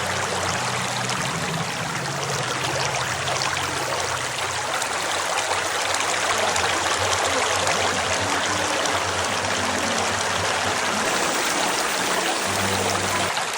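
Underground cave waterfall rushing steadily, a continuous hiss of falling and splashing water.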